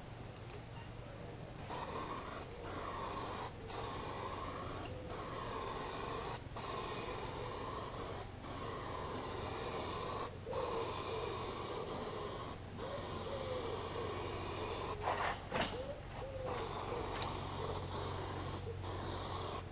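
Paint being sprayed in long passes: a steady hiss that starts about two seconds in and breaks off briefly about every one to two seconds as the spray is stopped between strokes, over a steady low hum.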